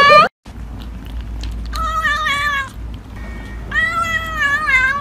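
Kitten meowing twice: a short call about two seconds in, then a longer drawn-out one near the end.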